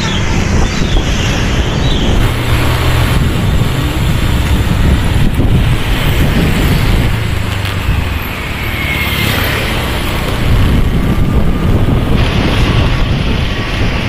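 A motor vehicle's engine and road noise while riding along a street, steady throughout.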